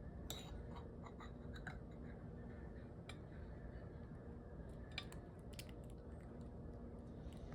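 Faint steady hum of an air fryer's fan running, with a few light clicks and taps scattered through it.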